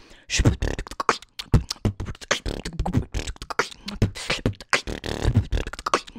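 A woman beatboxing into a microphone: a fast, steady rhythm of vocal drum sounds, deep thumps mixed with sharp clicks and hisses, starting a moment in.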